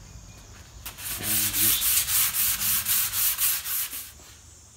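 Hand sanding of a wood veneer cabinet side with a sponge sanding block and fine sticky-back sandpaper. Quick back-and-forth strokes, about four or five a second, start about a second in and stop near the end.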